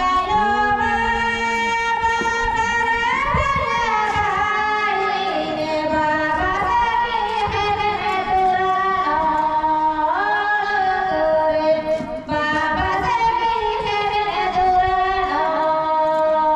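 Music: a melody of long held notes that slide up and down in pitch, with a singing or reedy tone.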